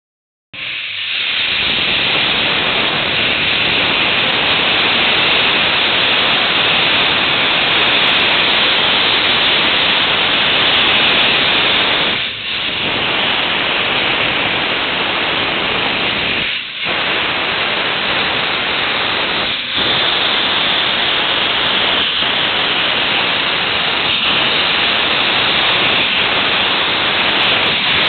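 Steam locomotive venting steam: a loud, steady hiss, broken briefly three times.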